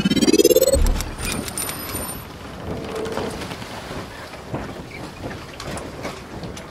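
Logo-intro sound effect: a rising whoosh that ends in a deep boom about a second in, followed by a crackling hiss scattered with small sharp ticks.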